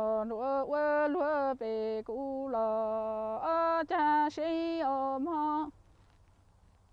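A woman singing unaccompanied in the Hmong sung-poetry style (lug txaj, kwv txhiaj), holding long wavering notes in short phrases. The phrase ends near the end.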